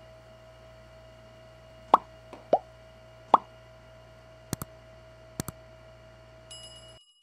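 Subscribe-button animation sound effects: three cartoon pops with a falling pitch, then two quick double clicks of a mouse, and a brief high ring near the end. A steady electrical hum runs underneath.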